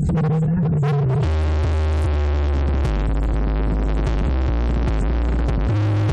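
Electronic dance music with heavy, sustained bass notes played through a Logitech X-230 subwoofer. The bass drops to a deeper held note about a second in.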